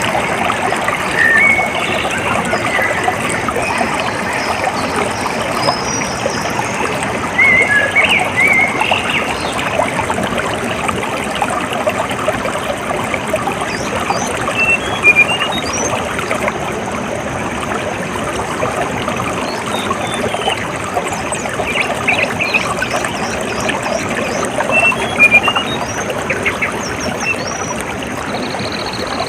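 Water trickling and splashing steadily, with small birds chirping on and off over it.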